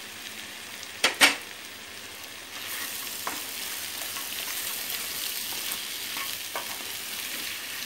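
Boiled mutton pieces frying and sizzling in a pan of fried onion-tomato masala, with stirring. Two sharp knocks come about a second in, and the sizzle grows louder about two and a half seconds in.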